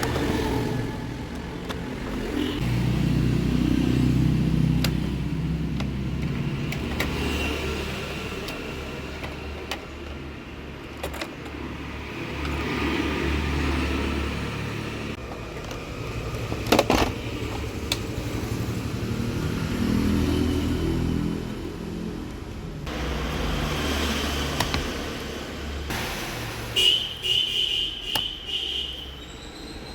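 Low rumble of passing road traffic, swelling and fading several times, with a few sharp clicks and knocks, several of them close together near the end.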